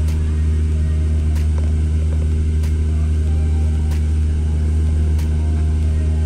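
Double-decker bus engine running steadily on the move, heard from inside the passenger cabin as a loud low drone. A faint short click repeats about every second and a quarter.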